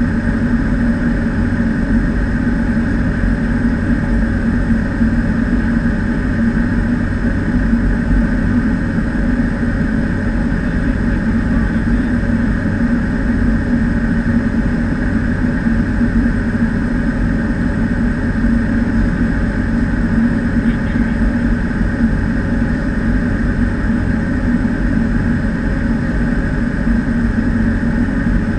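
Cessna 208B Caravan's single turboprop engine and propeller droning steadily in flight, heard inside the cockpit.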